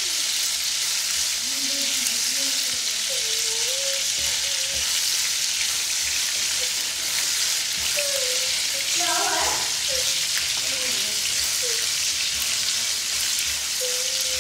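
Small chicken pieces frying in a pan of oil and their own juices, a steady sizzling hiss, while a silicone spatula stirs them about.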